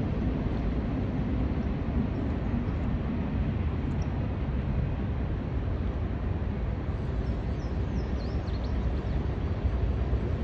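Wind buffeting the microphone as a steady low rumble, over the even noise of a shallow river flowing.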